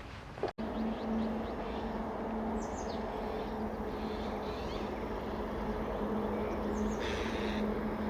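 A steady low hum holding one constant low tone. A bird gives two short, falling chirps, about two and a half seconds in and again about seven seconds in.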